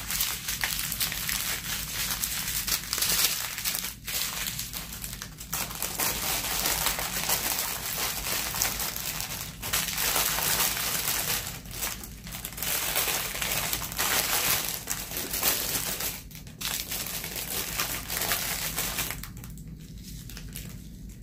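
Small clear plastic bags of diamond-painting drills crinkling as they are handled and sorted into a larger plastic bag. The crinkling stops briefly every few seconds and fades near the end.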